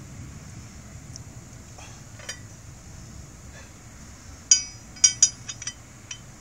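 Sharp metallic clinks of tools or hardware knocked together: a few faint ticks, then a quick cluster of ringing clinks starting about four and a half seconds in.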